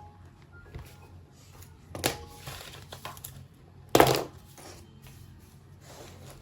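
Things being handled: two sharp knocks about two seconds apart, with a few lighter clicks between them.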